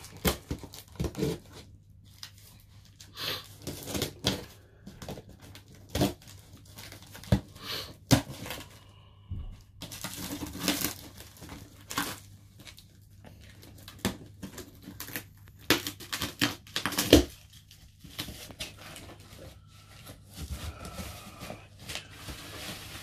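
Packing tape being ripped and peeled off a cardboard box in irregular tearing strips, with cardboard crackling. Near the end the open flaps and the wrapping sheet inside give a softer rustle.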